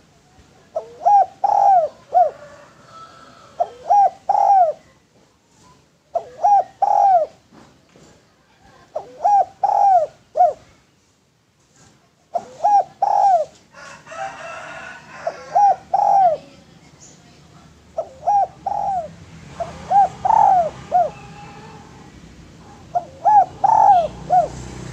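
Spotted dove (tekukur/derkuku) cooing: short phrases of two to four arched coos, repeated every few seconds.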